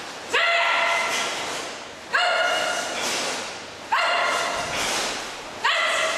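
Karate students shouting kiai in time with their punches: four sharp, high-pitched shouts about 1.8 seconds apart, each fading away in the hall.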